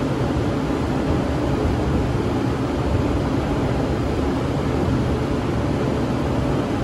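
Large drum floor fan running steadily, a constant, even rush of air noise with a low hum underneath.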